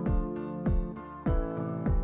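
Background music: a deep beat about every two-thirds of a second under held chords.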